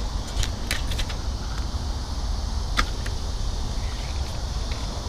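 Steady low rumble of wind on the microphone, with a few light clicks and ticks about half a second to a second in and one sharper click near three seconds in.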